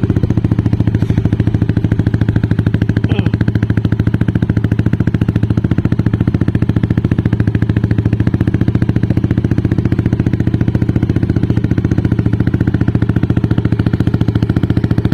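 Yamaha Aerox 155 scooter's single-cylinder four-stroke engine idling steadily through an aftermarket Aun worm-type exhaust pipe, with fast, even exhaust pulses at a constant pitch.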